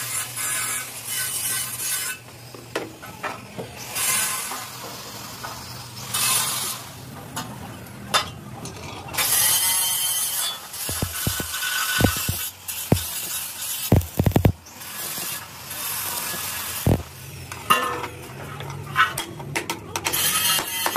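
Clanking and scraping of heavy hand tools on a steel truck-chassis channel as a screw clamp is worked. A run of sharp metal knocks comes in the middle.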